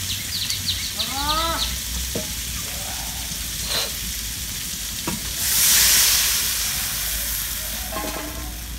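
Potatoes frying in oil in a kadai, then water poured into the hot pan about five and a half seconds in: a loud hiss that swells and fades away over the next two seconds or so.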